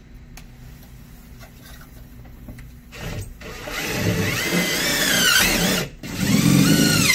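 Power driver with an extension and Phillips bit driving screws into the dispenser's bottom mounting holes. About three seconds in, the motor spins up with a rising whine and then drops in pitch. It stops briefly just before six seconds and runs again near the end.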